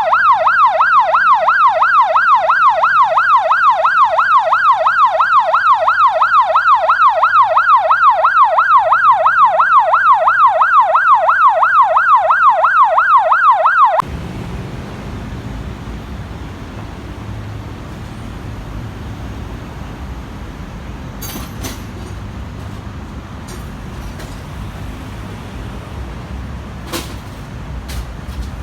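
8200B electronic siren sounding a fast yelp, its pitch sweeping up and down about three times a second. It cuts off suddenly about halfway through, leaving low wind-like background noise with a few faint clicks.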